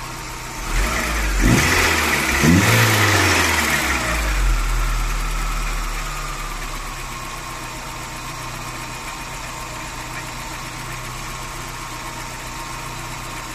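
Volkswagen Saveiro pickup engine running: a louder surge with rising and falling tones over the first few seconds, then settling to a steady idle.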